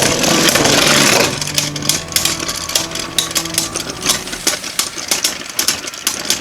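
Two Beyblade spinning tops, a 3D-printed one and a Union Spriggan with metal swords, clashing and spinning in a stadium. A loud grinding clash at the start gives way to a rapid run of clicks and rattles with a steady spinning hum as the tops knock together and slow down.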